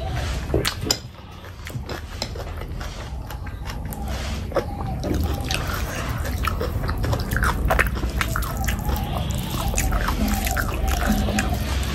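Close-miked wet chewing and mouth sounds of a person eating curried meat: a run of sticky clicks and smacks that keeps going.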